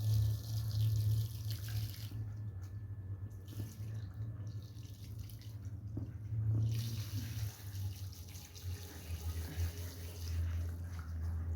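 Water hissing as it runs or sprays onto a soiled wool rug being washed, stopping and starting several times, over a steady low hum.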